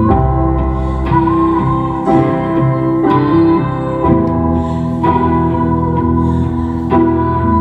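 Nord Stage 2 stage keyboard playing a piano sound live: slow sustained chords, a new chord struck about once a second.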